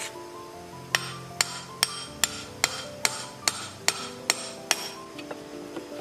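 Hammer blows on a steel drift held against the rusted end of an electric water pump's motor casing, metal on metal, knocking it loose to get at the worn bearings. About ten sharp, even strikes, two or three a second, begin about a second in and stop near the end, followed by lighter taps.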